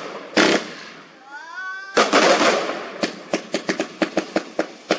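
Fireworks going off: a few sharp bangs, a heavier crackling burst about two seconds in, then a rapid even string of cracks, about five a second, as from a multi-shot firework cake. A brief rising pitched tone sounds about a second in.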